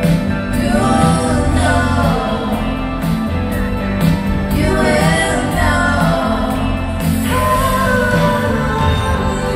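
Live rock band playing a song with sung vocals, heard from the audience.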